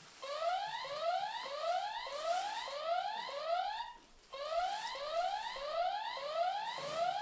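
A repeating rising electronic whoop, each sweep gliding quickly upward, about one and a half a second, with a brief pause about four seconds in: an alarm-like looping sound effect.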